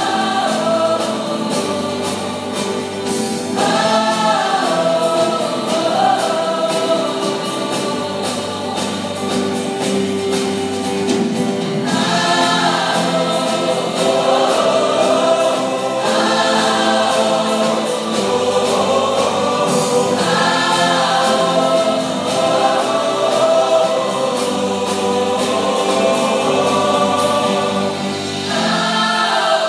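Large mixed choir of young men and women singing together, the phrases rising and falling and starting afresh every few seconds.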